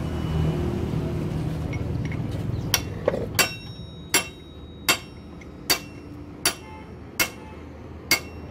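Hammer blows on steel parts of a Hino truck's manual gearbox during assembly: about nine sharp, ringing metallic strikes, roughly one every three-quarters of a second, starting about three seconds in. Before them a steady low rumble.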